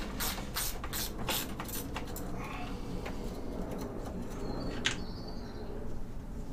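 Hand socket ratchet clicking at about three strokes a second as a radiator-and-condenser bracket bolt is undone, stopping about two seconds in. Then quieter handling, with one sharp click about five seconds in.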